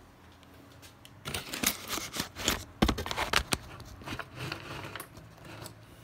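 Clicks, taps and light rattles of a laptop and small tools being handled. They start about a second in and are loudest around the middle, with a few fainter taps afterwards.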